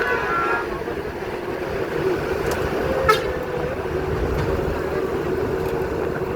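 Steady mechanical drone with a low rumble, like a vehicle running, with a single sharp click about three seconds in.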